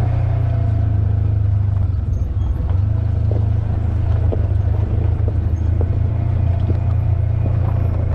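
Polaris General XP 4 side-by-side's engine running steadily under way, a low even drone, with scattered light knocks and rattles from the vehicle.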